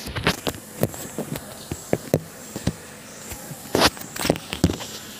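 Handling noise from a phone being gripped and moved: irregular clicks, taps and rubs of fingers on the body near the microphone, loudest a little under four seconds in.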